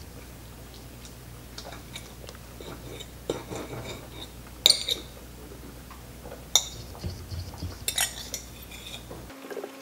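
Metal fork clinking and scraping against a ceramic dinner plate, with a few sharp clinks among softer taps, over a steady low hum.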